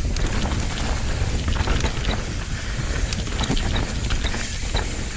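Downhill mountain bike riding fast over a loose dirt trail: wind buffeting the microphone over tyre noise, with scattered rattles and clicks from the bike.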